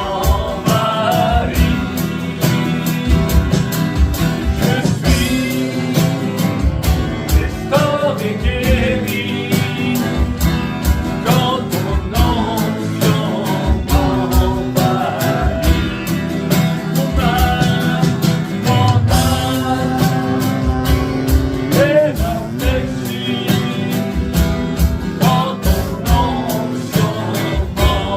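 Christian worship song: a singer's voice over a band with a steady beat.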